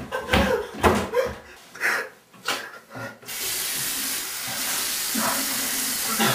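Bathroom sink tap turned on about halfway through, water running steadily into the basin with an even hiss. Before it come a few scattered knocks and movement sounds.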